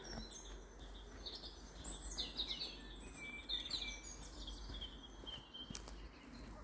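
Songbirds singing: a string of high chirps and short descending trills, which stop about six seconds in.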